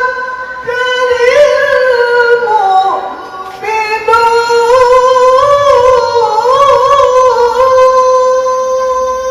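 A man reciting the Quran in the melodic tilawah style in a high voice, drawing out vowels into long ornamented phrases. One phrase slides down and fades about three seconds in. A second long phrase follows with wavering turns and settles on a held note.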